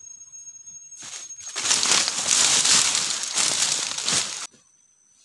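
Close footsteps crunching through dry leaf litter and brushing past foliage, a loud dense crackling and rustling that starts about a second in and cuts off abruptly near the end.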